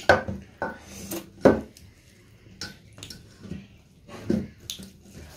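Stainless steel plates clattering: a large steel plate set down on the table and knocking against metal, with several sharp clinks spread out, the loudest about a second and a half in.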